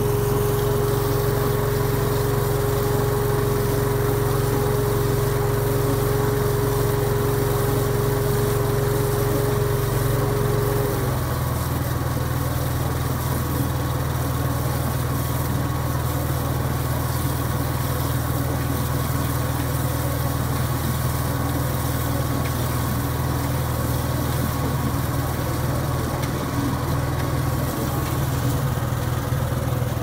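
Engine of a Cormidi C85 tracked dumper with self-loading concrete mixer running steadily. About eleven seconds in, a steady whine cuts out and the engine settles to a lower, slightly different note.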